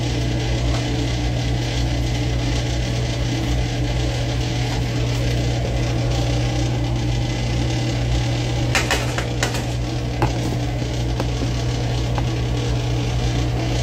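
Steady low hum with an even hiss over it, the background of food frying in a kitchen, with a few sharp clatters of utensils about nine seconds in.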